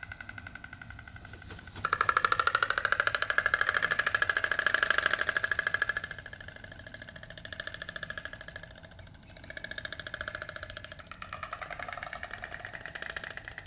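Oriental stork (Ciconia boyciana) bill-clattering: a rapid, even rattle of the bill snapping together. It is loudest for a few seconds from about two seconds in, then goes on in quieter bouts. Adult storks make this sound in place of a call, because the syrinx degenerates with age.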